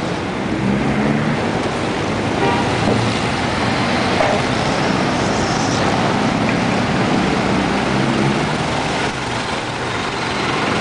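Outdoor traffic noise: motor vehicle engines running close by over a steady wash of road traffic.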